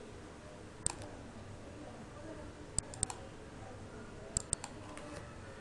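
About six sharp clicks from working a computer mouse and keyboard, two of them in quick pairs, over a faint steady hiss.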